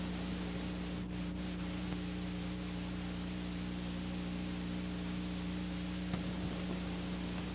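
Steady electrical hum over an even hiss, the noise floor of an old film or tape transfer with no other sound, broken only by a couple of faint clicks about a second in.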